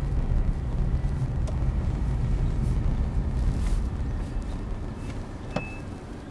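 Low rumble of a car driving, dying down over the last couple of seconds, with a single small click near the end.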